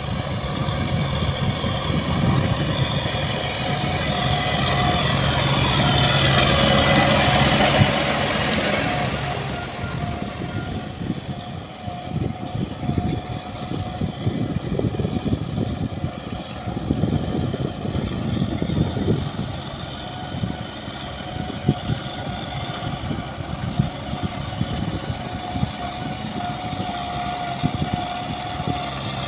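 Kubota tractor's diesel engine running under load as its rear rotary tiller churns through flooded paddy mud. It swells to its loudest about eight seconds in, then settles steadier and lower.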